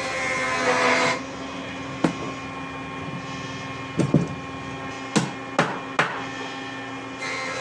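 Hammer blows on wood: a handful of sharp, irregularly spaced strikes, including a quick pair about four seconds in and a run of three between five and six seconds, over a steady hum.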